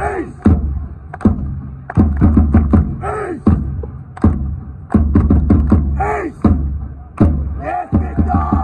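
Supporters' bass drum beating bursts of quick strokes, about four a second, in a phrase that repeats roughly every three seconds, with the crowd shouting a chant between the drum phrases.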